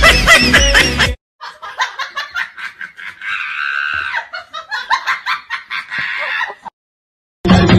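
People laughing and giggling in quick, choppy pulses for about five seconds. A stretch of music cuts off about a second in, and music starts again near the end.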